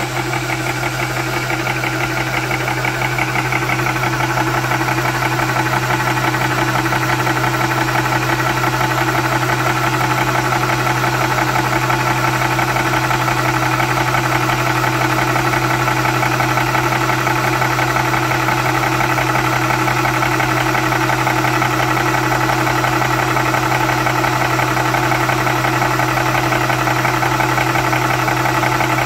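Wolf 300 bar high-pressure air compressor running steadily as it fills an air rifle towards 290 bar, over the steady hum of its cooling fan. The compressor's sound builds over the first few seconds, then holds even.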